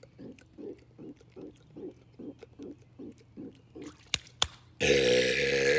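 A man's long, loud burp begins near the end, one sustained pitched belch. Before it come soft rhythmic pulses, about four a second, and then two sharp clicks.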